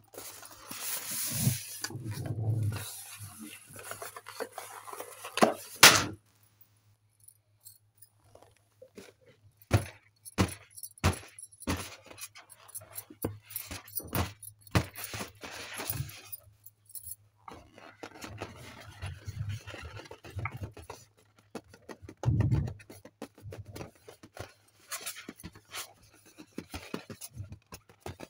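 Hands handling latex balloons: rustling and scraping through a pile of deflated balloons, one loud sharp snap about six seconds in, then a run of short taps and rubbing on an inflated latex birthday balloon.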